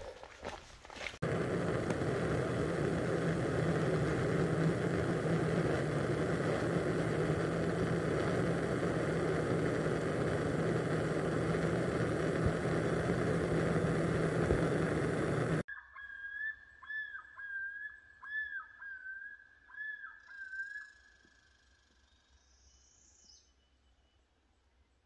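Footsteps for about a second, then a loud steady rushing noise that cuts off abruptly about fifteen seconds in. A bird then calls a repeated whistled phrase about five times, each note dipping in pitch.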